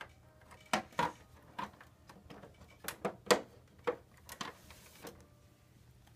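A series of about ten sharp plastic knocks and clacks: dolls and toy pieces being bumped and set down in a plastic toy dollhouse.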